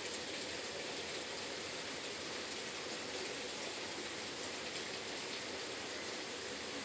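A steady, even hiss with no distinct sounds or changes in it.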